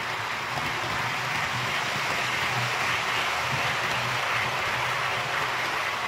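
Hornby OO gauge HST model train, the New Measurement Train in a nine-car rake, running along the track: a steady rush of metal wheels rolling on the rails over a low motor hum.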